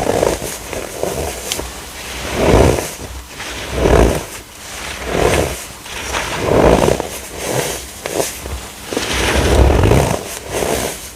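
Blocks of compressed baking soda being crushed, a series of gritty crunches about every second and a half.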